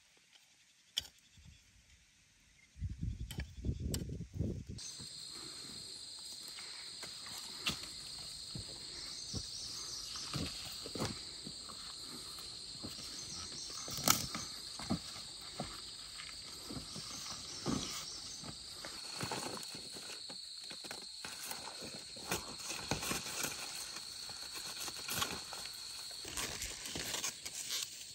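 Insects start a steady high-pitched buzzing about five seconds in and keep it up, over scattered knocks and scrapes. Just before the insects begin there is a brief low rumble.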